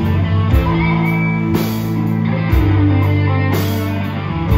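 Live rock band playing an instrumental passage: electric guitars and bass holding chords over a drum kit, with cymbal strikes every half second to a second.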